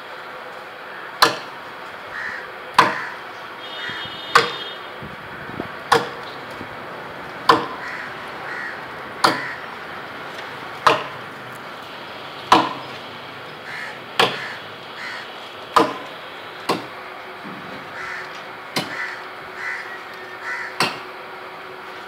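Hand chopping into a coconut palm trunk with a blade: sharp, evenly paced strokes, about one every one and a half seconds, with birds calling faintly between the strokes.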